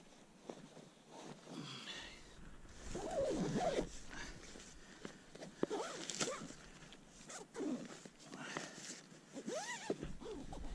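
Zippers and nylon fabric of camping tent gear being handled, with rustling swishes, a few clicks and several short squeaks that rise and fall in pitch.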